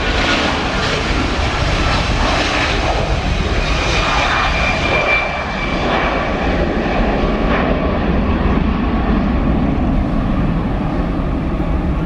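Garuda Indonesia Airbus A330's twin jet engines running at takeoff thrust as it lifts off and climbs away: a loud, steady jet noise with a thin high whine most clearly heard about four to five seconds in.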